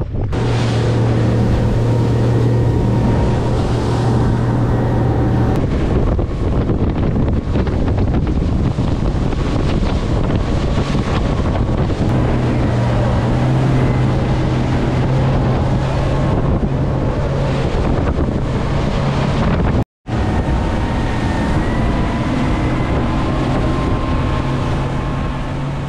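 Motorboat engine running steadily at speed, its low hum shifting pitch slightly a few times, with wind buffeting the microphone. The sound cuts out for a moment about twenty seconds in.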